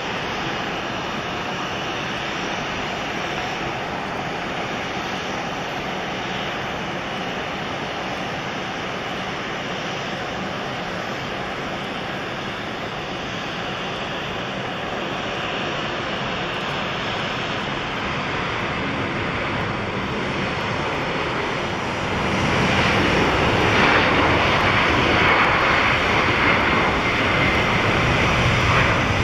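A Boeing E-4B's four General Electric CF6-50 turbofans at takeoff thrust during the takeoff roll: a steady, wide jet rush. It grows clearly louder near the end as the aircraft reaches rotation.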